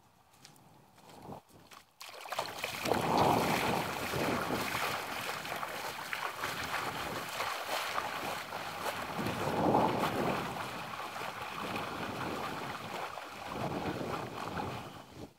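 Legs wading through shallow lake water, a continuous splashing and sloshing with each stride that starts abruptly about two seconds in and swells and eases.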